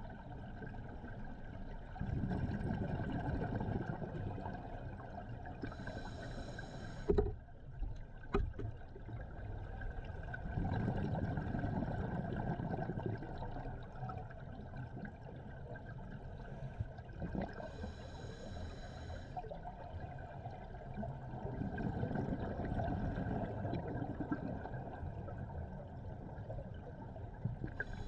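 Scuba diver breathing through a regulator underwater, three slow breaths. Each is a short hissing inhale followed by a longer low rush of exhaled bubbles. Two sharp knocks come about seven and eight seconds in.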